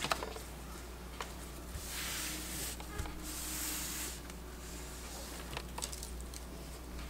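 Faint handling noise from a bare mechanical keyboard with its keycaps off being lifted and tilted by gloved hands: soft rustling of gloves and plastic, loudest for a couple of seconds in the middle, with a few light knocks.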